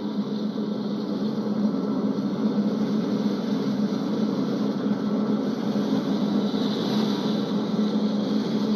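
Steady drone of a boat's engine, with a constant low hum and a hiss over it.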